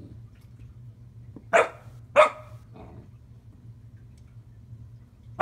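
Bearded Collie puppy barking: two sharp barks about a second and a half in, a fainter one just after, and another right at the end.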